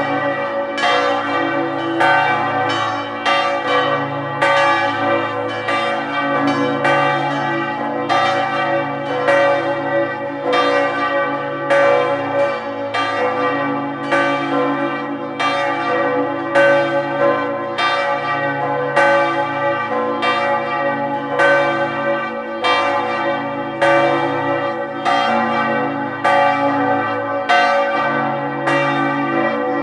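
Several church bells ringing together in a continuous peal, about two strokes a second, each stroke ringing on into the next over a steady hum.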